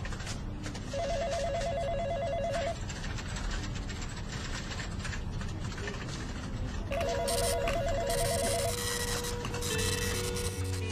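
Electronic desk telephone ringing with a rapid warbling trill: two rings of under two seconds each, about six seconds apart.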